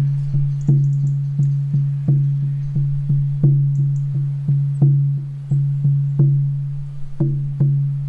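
14-inch horse-skin shamanic frame drum on a beechwood frame, struck with a soft padded beater in a steady beat of about three strokes a second. Each stroke gives a deep boom whose low ring carries on under the next.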